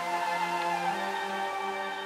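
Background music with slow, held notes that change about a second in.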